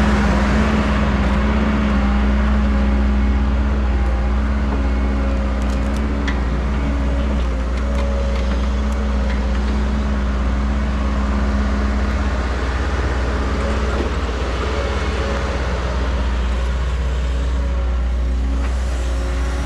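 Bulldozer's diesel engine running steadily under load while pushing dirt, a constant low hum with little change in level.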